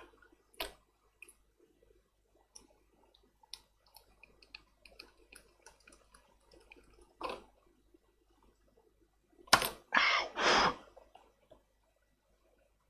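Small clicks and taps of tools and a circuit board being handled on a workbench, with a sharper knock about seven seconds in and a brief cluster of louder, rough handling noises around ten seconds in.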